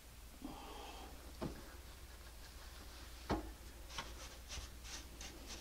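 Faint, scattered scrapes and taps of a hand trowel spreading wet mortar on a wooden subfloor, a few short strokes with quiet between them.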